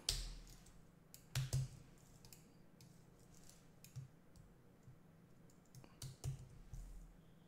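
Computer mouse and keyboard clicks while editing code: a few scattered, light clicks and taps, the loudest pair about a second and a half in.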